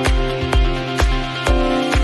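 Electronic dance music with a steady kick drum, about two beats a second, under sustained synth tones.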